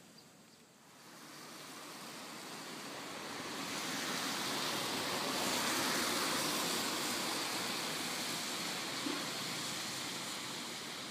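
A vehicle passing on a wet road: a tyre hiss that swells over the first few seconds and slowly fades away.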